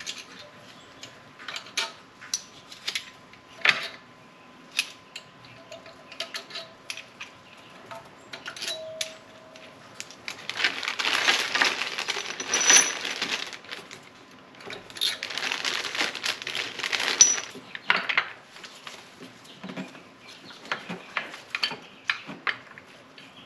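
Camshaft bearing caps on a BMW inline-six cylinder head clinking, metal on metal, as they are popped off and handled one after another. Twice in the middle, for two or three seconds each, a plastic bag rustles.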